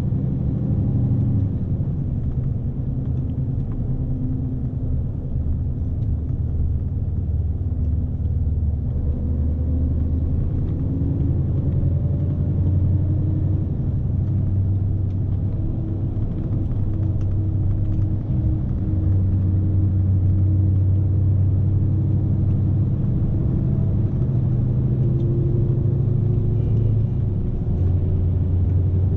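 Scania S520 truck's V8 diesel engine running under a heavy load, heard from the cab as a steady low drone whose pitch slowly rises and falls with the road speed and gearing.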